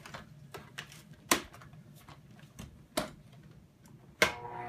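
Plastic clicks and knocks from handling the parts of a Shark upright vacuum, a few sharp ones among lighter ticks. The loudest click comes near the end, just as the vacuum's motor starts and begins to spin up.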